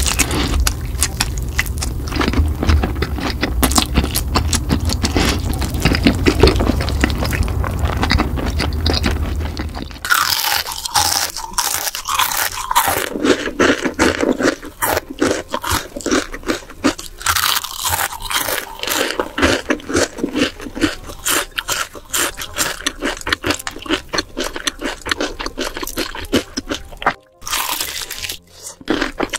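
Close-miked crunching and chewing of crispy fried chicken: a dense run of crisp crunches from bites and chews. A low hum sits under the first third, and after a change about a third of the way in the crunches come brighter and sharper.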